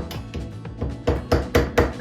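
Background music with a steady percussive beat, about four strikes a second.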